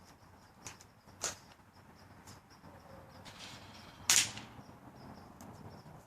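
A single BB gun shot about four seconds in: a sharp crack with a short ringing tail, as the BB strikes an old phone set up as a target. A couple of small clicks come before it.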